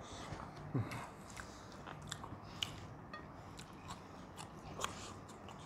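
A person chewing and biting food close to the microphone, with scattered small wet clicks and light crunches.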